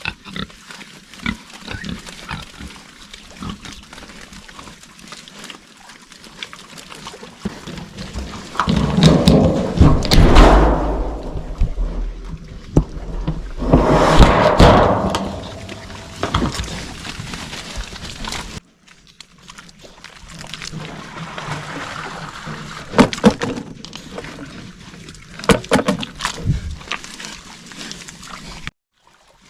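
Feeder pigs grunting, with two louder, longer bursts about nine and fourteen seconds in.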